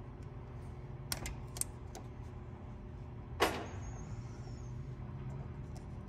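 Small clicks and one sharp snap from hands handling wires and electrical tape on a headlight wiring harness, with a faint high ring for about a second after the snap, over a steady low hum.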